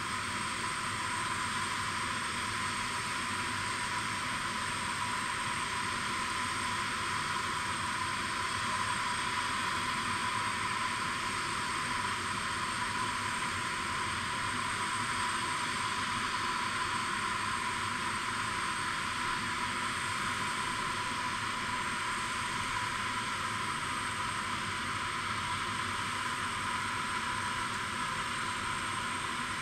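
Steady turbine whine and hiss of the parked Antonov An-124-100's auxiliary power unit running before engine start, with a constant high tone over a dense rushing noise.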